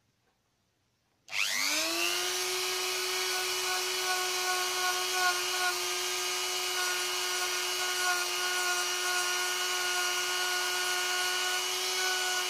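A handheld СТАРТ rotary tool switched on about a second in, spinning up with a quick rising whine and then running at a steady high pitch. It is running with a small polishing disc held against an electroformed copper leaf.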